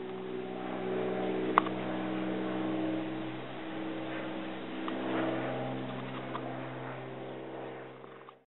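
A steady engine hum with a low, even drone, and a sharp click about a second and a half in; the hum cuts off just before the end.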